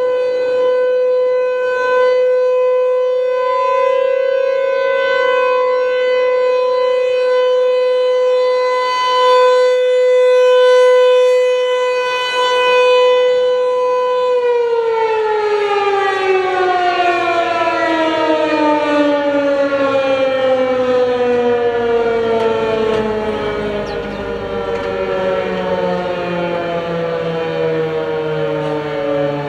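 ASC T-128 tornado siren sounding a steady alert tone, then winding down about halfway through, its pitch falling slowly to the end.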